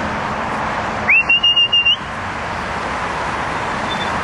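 A person whistling one sharp note that rises quickly and is held, pulsing, for about a second, a call to bring flying birds back in.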